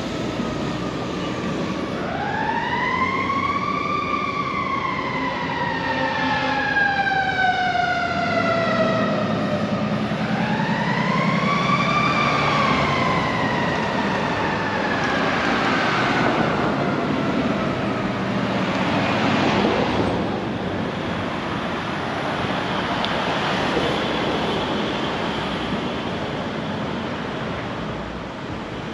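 Emergency vehicle siren wailing in two long cycles: each climbs quickly in pitch, then falls away slowly over several seconds. After that it fades, leaving street traffic noise.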